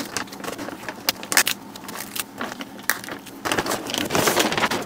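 Clear plastic bag crinkling and crackling as it is worked off a radio by hand, in irregular sharp crackles with a longer rustle near the end.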